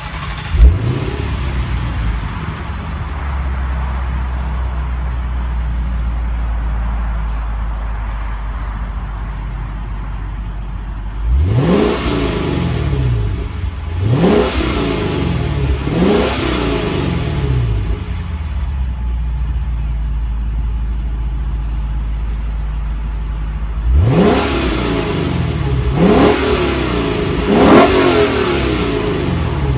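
The 2016 Lexus GS F's 5.0-litre V8, heard at the quad exhaust tips, idling steadily and revved in short blips. There is a brief rise right at the start, three quick revs about twelve to sixteen seconds in, and three more about twenty-four to twenty-eight seconds in. The exhaust is in standard mode, then sport mode near the end.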